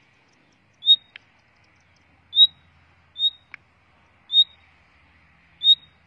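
Caged common nightingale giving short, high whistled call notes, five times roughly a second apart, with a couple of faint clicks in between.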